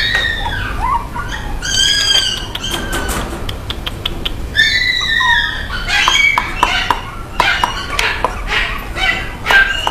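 Toy poodles whining: two long high-pitched whines, about two and five seconds in, then a run of short cries and clicks.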